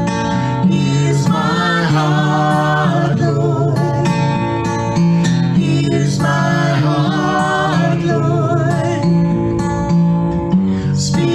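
A man and a woman singing together to a strummed acoustic guitar, a Takamine, playing steadily throughout.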